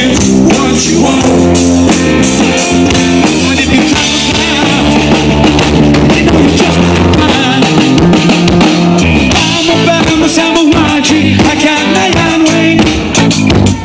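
Live rock band playing loud: electric guitar, bass guitar and drum kit, with a male singer at an amplified microphone.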